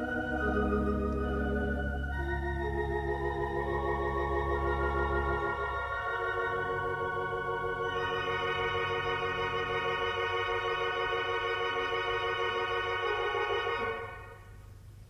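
Hilsdon theatre pipe organ playing slow sustained chords with a wavering tremulant, a deep pedal note underneath for the first five seconds or so. A long held chord is released near the end, and the sound dies away in the hall's bright reverberation.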